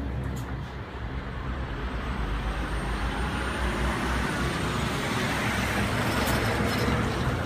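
A steady engine-like rumble with a constant low hum, growing gradually louder through the middle.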